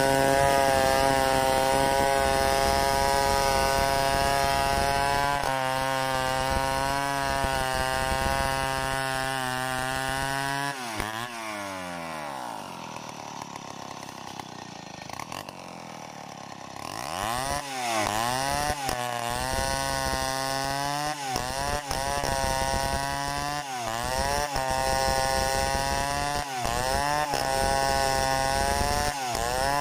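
Stihl 070 two-stroke chainsaw ripping a log lengthwise at full throttle, its engine note steady. About ten seconds in the revs fall away to idle for several seconds, then it is throttled back up and cuts on, the engine note repeatedly dipping and rising.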